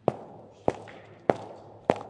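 High-heeled shoes walking on a floor: four even heel clicks, about one and a half steps a second.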